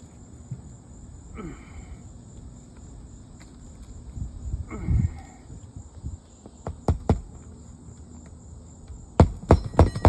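Hammer driving roofing nails into an asphalt shingle: two sharp strikes past the middle, then a quick run of blows near the end, with a couple of softer scraping sounds earlier. Crickets chirr steadily throughout.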